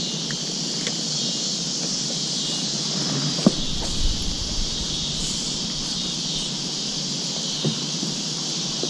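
Steady high-pitched chorus of insects. A single click comes about three and a half seconds in, followed by a short low rumble.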